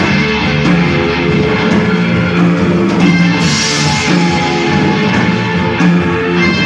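Post-punk band playing at rehearsal: electric guitar and bass over a rock drum kit, a steady repeating riff, with a brighter wash of cymbals about halfway through.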